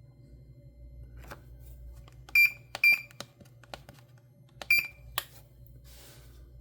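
GE WB27T10327 oven range control board beeping: three short, high beeps, two close together and one about two seconds later, with sharp clicks of its keypad buttons being pressed around them.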